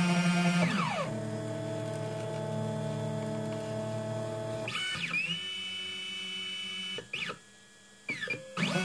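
3D printer stepper motors driving the bed's Z screws during automatic bed levelling, whining at a steady pitch on each move. The pitch slides down or up as the motors slow or speed up between moves. About seven seconds in the motors stop for under a second, with a couple of short blips, then start whining again.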